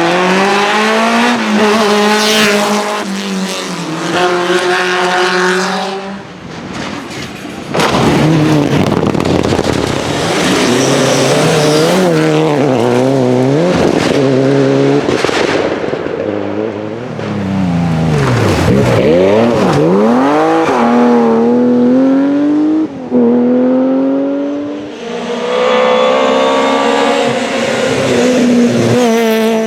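Rally cars driven hard on a stage, one car after another with abrupt changes between them. Each engine revs up through the gears, its note climbing and then dropping at each quick shift. Around the middle, one engine note falls away and climbs again.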